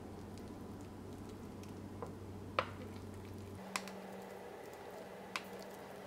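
Thick fruit-and-nut cake batter being scraped from a bowl into a metal cake pan: faint squelching with a few light clicks, the sharpest about two and a half seconds in, over a steady low hum.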